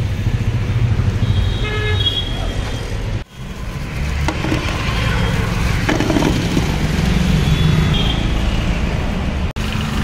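Street traffic rumbling steadily, with vehicle horns tooting briefly a couple of times. The sound cuts out for a moment twice.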